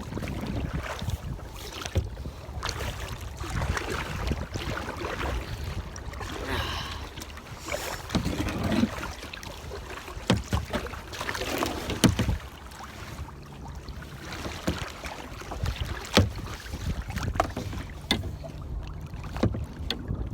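Wind buffeting the microphone in a kayak on open water, a steady low rumble with brief louder gusts and scattered sharp knocks.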